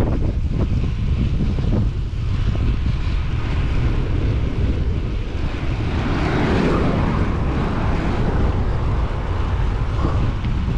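Wind buffeting an action-camera microphone on a road bike ridden flat out at close to 50 km/h: a heavy, steady rush with deep rumble. The rush swells for a couple of seconds in the middle.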